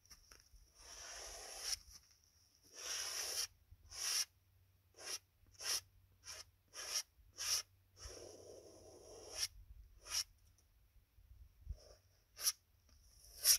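Brush strokes of oil paint on a canvas: a run of short swishes, about one every half second in the middle, with a few longer strokes near the start and again about eight seconds in.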